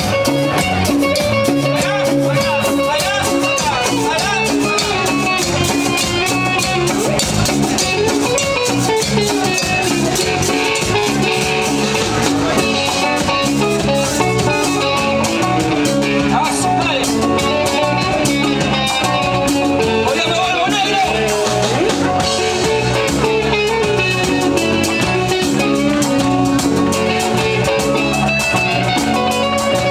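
Live chicha cumbia band playing an instrumental passage: an electric guitar melody over congas, drum kit, bass and a hand-held metal güiro.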